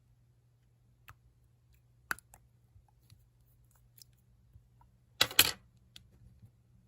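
Slime being pressed and poked by hand, giving scattered small clicks and pops, with a short louder burst of crackling pops about five seconds in.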